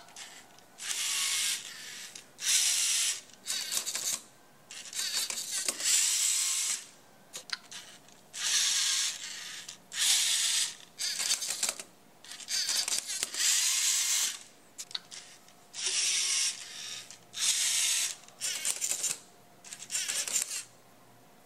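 Electric motors and plastic gear trains of a LEGO competition robot whirring in a series of short bursts, each about half a second to a second long, with brief pauses between them, as the robot drives and works its arm.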